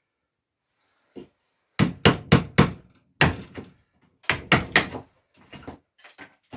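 Hammer blows on a chisel, chopping out an inside hole in a wooden board: sharp strikes in quick groups of three or four, with lighter taps near the end as the cut nears breaking through.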